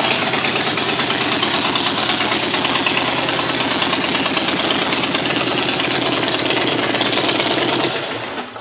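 2011 Harley-Davidson Dyna Fat Bob's 96-cubic-inch V-twin idling steadily through its aftermarket Vance & Hines exhaust, with a rapid, even firing pulse. Near the end the engine is switched off and the sound dies away.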